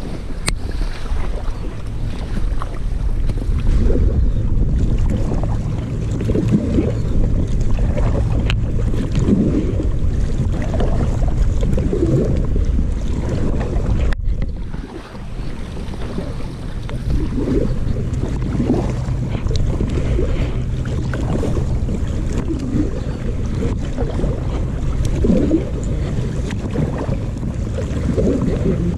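Strong wind rumbling on the microphone aboard an inflatable kayak, with water sloshing against the hull and paddle strokes coming every second or two.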